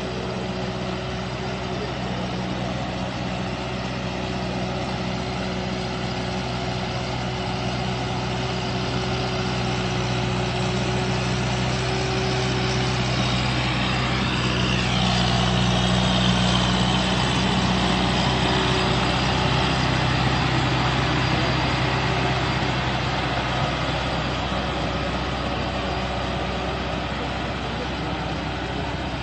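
Preet tractor's diesel engine running steadily under load while pulling a rotavator through a flooded paddy field. It grows louder around the middle, then eases back.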